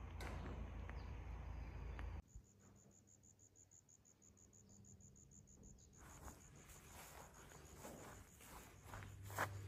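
A cricket chirping: a steady high-pitched pulsing, about six or seven pulses a second. Over the last few seconds come soft footsteps on dirt, with one sharp click near the end.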